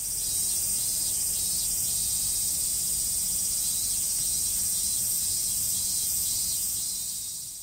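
Steady, high-pitched chorus of summer insects over a faint low rumble, fading out near the end.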